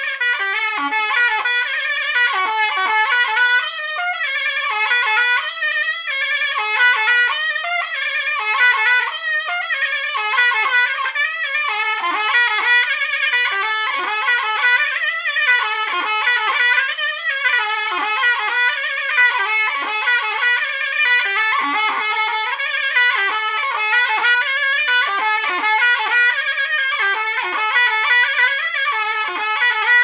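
Solo zurna, the Turkish folk shawm, playing a heavily ornamented folk melody full of quick turns, with no drum. The line runs on without a break.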